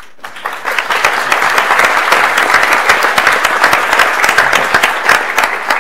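Audience applauding, a dense patter of many hands that swells over the first second, holds loud, and tapers off near the end.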